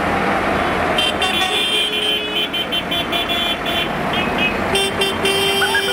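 Diesel farm tractors driving past in a parade, engines running, with horns tooting and a high, rapidly pulsing beep over the engine noise.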